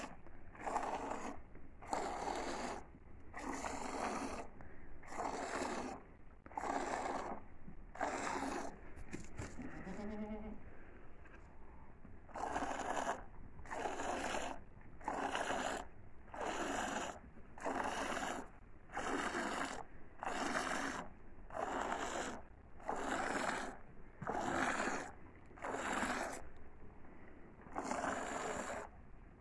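Goat being hand-milked into a bucket of frothy milk: each squeeze sends a jet of milk hissing into the foam, a little more than once a second. The squirts pause for about three seconds a third of the way in, and in that pause the goat gives a brief low bleat.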